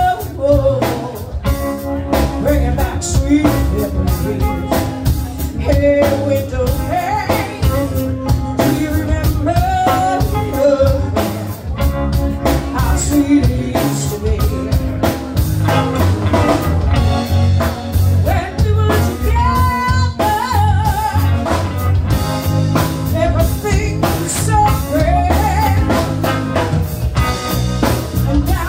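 Live band playing: a woman singing lead through a microphone over electric guitars and a drum kit, amplified through a bar PA.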